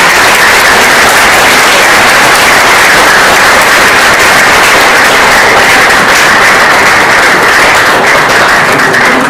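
Audience applauding steadily, a dense roomful of clapping.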